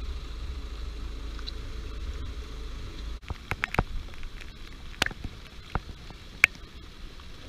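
Wind rumbling on the microphone in a storm; about three seconds in it stops abruptly, and scattered light clicks and taps follow.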